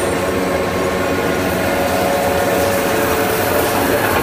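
Corn snack extrusion line with a ZH65-III twin-screw extruder running: a loud, steady mechanical drone with several held tones and no break.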